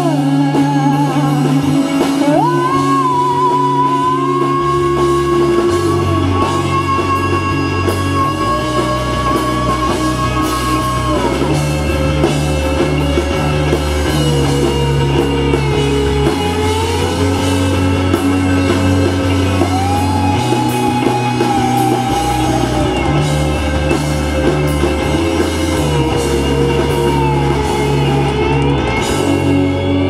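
Live rock band playing amplified: semi-hollow electric guitar, electric bass and drum kit, with a melody line of long held notes that slide from one pitch to the next over bass notes changing every few seconds.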